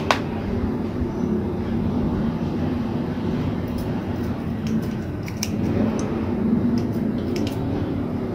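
A steady low rumble with a faint hum throughout. Over it come scattered light clicks from scissors snipping portulaca stems, one sharper click at the very start and small clusters of clicks in the middle and near the end.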